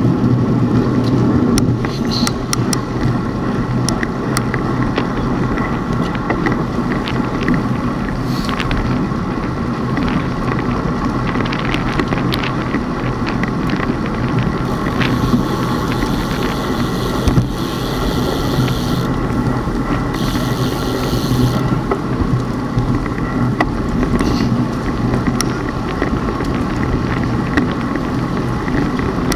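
Steady running noise of a moving vehicle with a low engine hum, scattered small clicks, and two short bursts of high hiss about halfway through.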